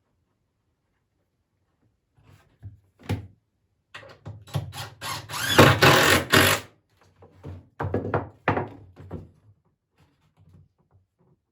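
A couple of knocks from poplar boards being set in place, then a cordless drill driving screws into the poplar in two runs: a long one about four seconds in and a shorter one near eight seconds.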